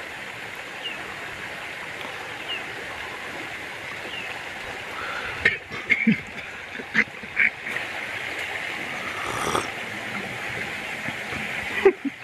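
Steady rush of flowing river water, with a few knocks and taps about halfway through and a sharp knock near the end.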